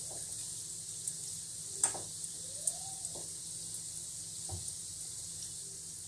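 Moong dal batter fritters (ram laddoo) deep-frying in hot oil in a kadhai over a high gas flame: a steady sizzle with a few sharp pops.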